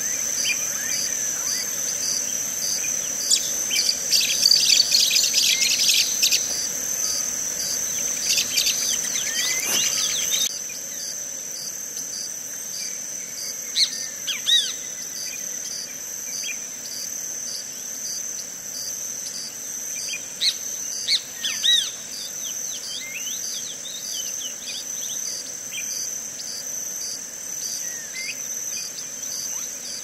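Steady insect chorus, a high continuous trill with a pulsing edge, under scattered bird calls: a dense run of quick sweeping chirps a few seconds in, then short separate calls every few seconds.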